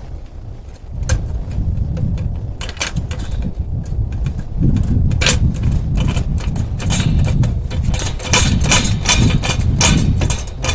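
Metal tools clicking and clanking rapidly on a car wheel during a tyre change, growing busier about halfway through, over a low rumble like wind on the microphone.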